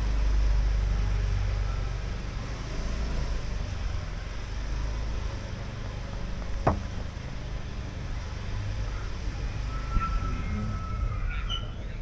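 Street ambience: a steady low rumble, with one sharp knock about six and a half seconds in and a short high tone near the end.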